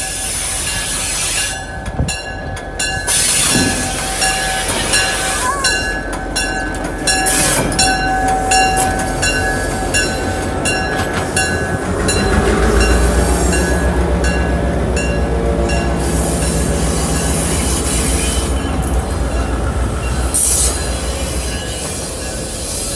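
A diesel-hauled passenger train rolling slowly past close by, its wheels giving a steady high squeal on the rails. A deep engine rumble swells about halfway through as the locomotive goes by, and the cars keep rolling past after it.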